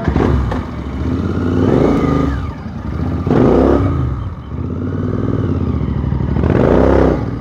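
Motorcycle engine revved with the throttle as the bike moves off: its pitch rises and falls three times in loud swells.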